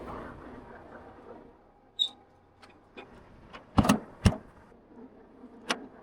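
A few scattered clicks and knocks, the two sharpest close together about four seconds in, with a short high beep about two seconds in.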